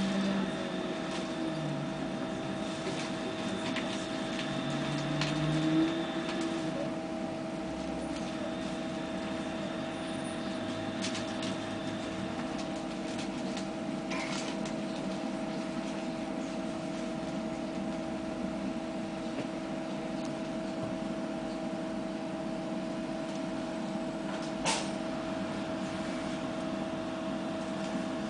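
Steady electrical hum and whine of a Bogdan trolleybus's equipment heard from inside the passenger cabin, with a higher steady whine that stops about six seconds in and a single sharp click near the end.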